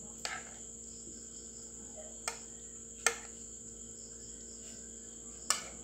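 Four sharp clinks of a utensil on cookware as chopped onion and garlic go into the frying beef, the third the loudest. A steady high-pitched insect trill, like crickets, runs behind.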